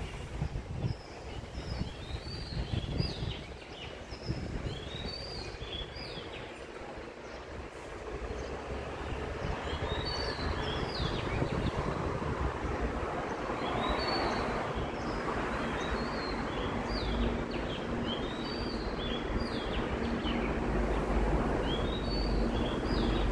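Outdoor street ambience: a steady wash of road traffic that swells as a vehicle passes midway, with small birds chirping in short high calls in several bursts.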